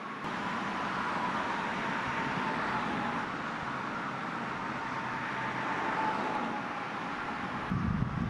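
Steady outdoor ambience of road traffic noise, with a faint high tone that slowly drops in pitch. The background shifts abruptly shortly after the start and again near the end.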